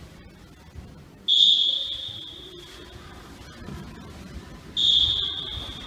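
A whistle blown twice, about three and a half seconds apart; each blast is a high steady tone that starts abruptly and fades over about a second.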